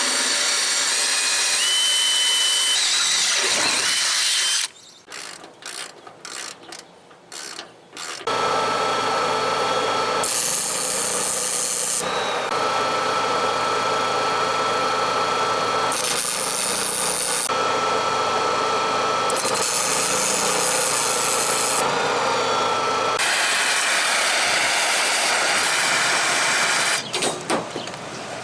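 Electric welder arc crackling and hissing as a ring is welded onto a steel ramp rack. There is one pass of about four seconds, a pause of a few seconds with a few clicks, then a long run of nearly twenty seconds that changes character several times before stopping near the end.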